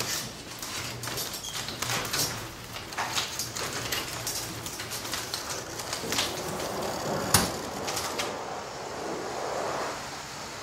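Overhead garage door running open on its opener, with a steady rumble and irregular clatter, and one sharp click about seven seconds in.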